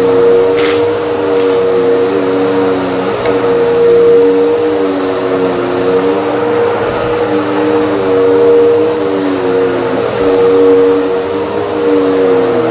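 Bagless upright vacuum cleaner running while pushed back and forth over a rug. It gives a steady motor hum and a lower whine that dips and rises again every couple of seconds with each push and pull.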